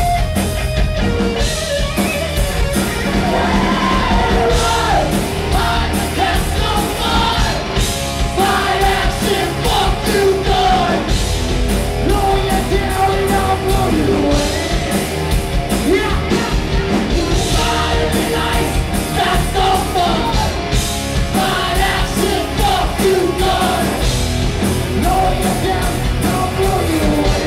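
Live rock band playing: a lead singer over electric guitars, bass and a drum kit with a steady beat.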